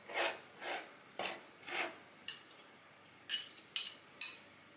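Two knives scraping through flour and cold butter and lard on a wooden counter, cutting the fat into pastry with strokes about twice a second; a few sharper clicks of the blades near the end.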